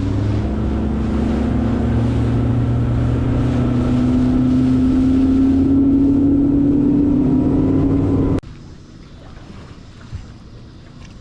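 Boat's outboard motor running under way, its pitch rising slowly as it gathers speed, then stopping abruptly about eight seconds in. After that only faint wind and water remain.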